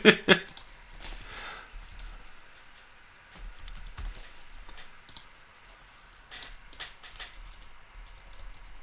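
Irregular clicks of typing on a computer keyboard, with short pauses between runs of keystrokes.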